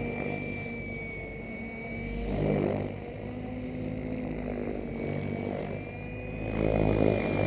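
Align T-Rex 800 DFC Pro HV electric radio-controlled helicopter in flight: a steady rotor hum under a high, thin electric-motor whine. The sound swells twice, a couple of seconds in and near the end.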